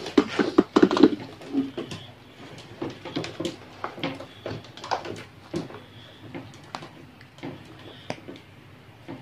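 Handling noise close to the microphone: a quick run of loud knocks and rustles in the first second or so, then scattered lighter clicks and scrapes.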